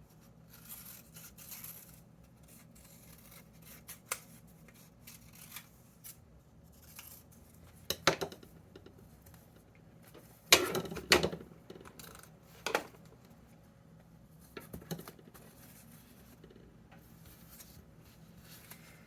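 Scissors cutting paper: scattered snips and short cutting strokes, with a loud cluster about halfway through, amid light paper handling.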